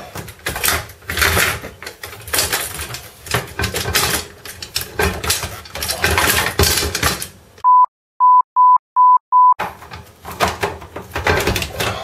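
Plastic parts of a washing machine door scraping and knocking as the door handle and inner glass are worked back into place by hand. About seven and a half seconds in, the sound cuts out to silence, broken by five short beeps of one steady tone: a censor bleep.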